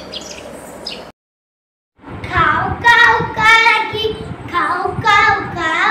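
A young girl singing a Kannada nursery rhyme unaccompanied, starting about two seconds in after a brief gap of dead silence. Before the gap there are only a few faint high chirps over low hiss.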